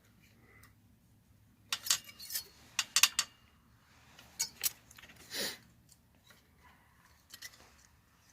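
Small metal hand tools clicking and clinking against metal in a few quick clusters, with a short scraping rush about five seconds in, while the valve adjusters on a Honda 300EX engine are being worked by hand.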